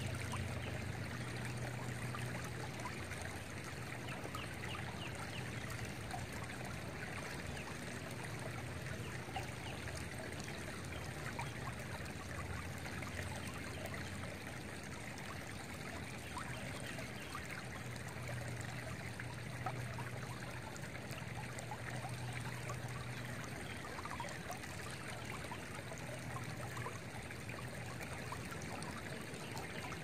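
Shallow creek water flowing steadily over and around stones, a constant burble full of small trickles and splashes.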